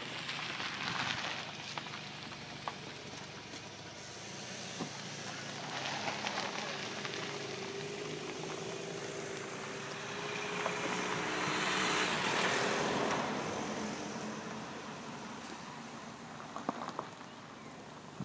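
Steady rushing road and wind noise heard from a moving vehicle, swelling a few times, with a faint steady engine hum in the middle.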